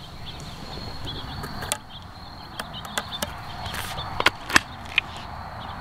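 Scattered sharp metal clicks and taps from handling an opened break-action double-barrel shotgun with caliber adapter inserts and shells in its chambers, the loudest about four and a half seconds in. Steady insect chirring in the background.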